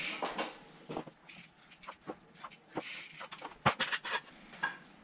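Mountain bike knocking and clattering in a homemade wooden manual-machine stand as the rider shifts on it and gets off: a string of sharp clicks and knocks with short swishing noises, and a heavy thump about three and a half seconds in.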